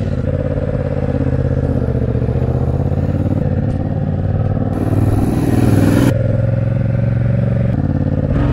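Motorcycle engine idling with a steady note, rising briefly about five seconds in as the bike pulls away.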